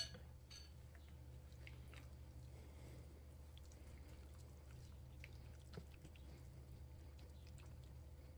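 Faint wet squelching of gloved hands massaging a thick marinade paste into a raw whole chicken, over a low steady hum. A sharp click sounds right as it begins.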